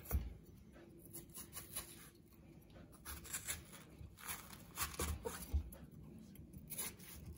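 Kitchen knife slicing through watermelon flesh and rind on a wooden chopping board: quiet, scattered cutting sounds with a few soft knocks of the blade on the board.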